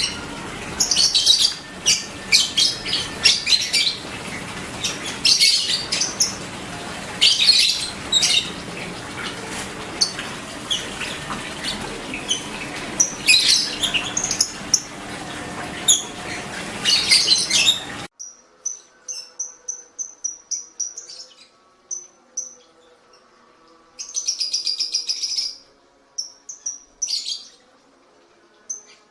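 Lovebirds chirping: many sharp, high calls over a steady background noise. About two-thirds of the way through the sound cuts abruptly to a cleaner recording of short, high repeated chirps broken by a couple of longer buzzy calls.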